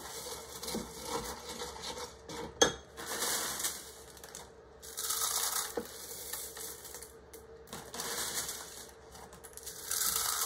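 Corn flakes being semi-crushed: crisp crunching and crackling in several bursts, with a sharp click a little over two seconds in.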